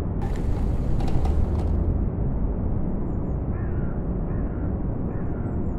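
Steady low rumbling ambience. A few brief, sharp noises sound in the first two seconds, and faint calls come through around the middle.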